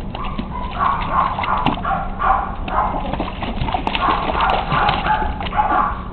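West Highland white terrier puppies yipping and whining in a run of short cries, two or three a second, with water splashing as they paddle.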